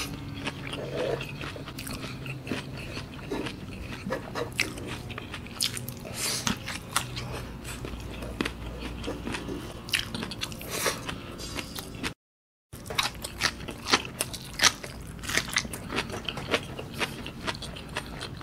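Close-miked chewing of a mouthful of rice and fresh raw herbs, with many small crunches and wet mouth clicks; the sound drops out for about half a second roughly two-thirds of the way through.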